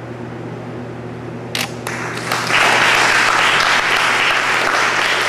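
Audience applause breaking out at the end of a dance performance: a few sharp claps about a second and a half in, then full, steady applause from about two seconds on.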